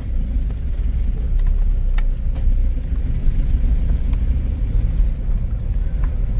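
Low, steady rumble of a Mahindra Scorpio on the move, engine and road noise together, with two sharp knocks about two and four seconds in.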